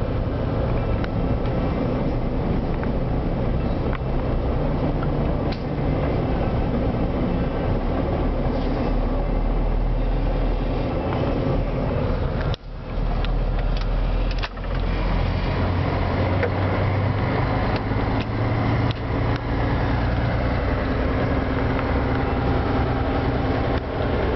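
Truck engine running and road noise heard from inside the cab while driving along steadily, with a low engine hum and two brief drops in level about halfway through.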